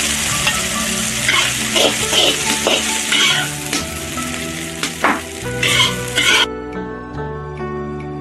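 Stir-fried eggplant and green peppers sizzling in an iron wok, with a metal ladle scraping and scooping them out in several sharp strokes. Background music plays underneath, and the sizzling cuts off suddenly about six seconds in, leaving only the music.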